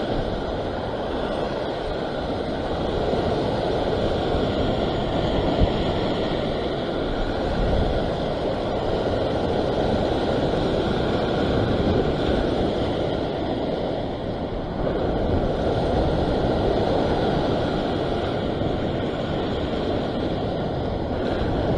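Ocean surf washing and foaming against a rock ledge, a steady rush of waves with wind buffeting the microphone.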